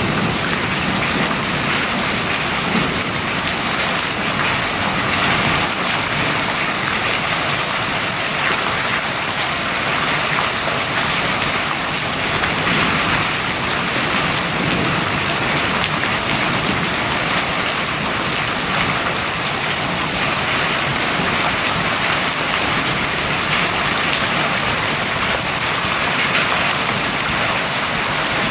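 Steady rain falling on surfaces during a thunderstorm, an even hiss that does not let up.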